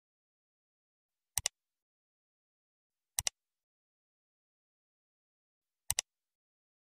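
Three quick double clicks of a computer mouse-click sound effect: the first about a second and a half in, the second about two seconds later, the last near the end.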